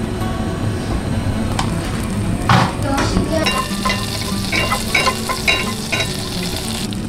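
Butter sizzling as it melts in a saucepan over low heat while a wire whisk stirs it and clinks against the pan. The sizzle turns brighter about halfway through.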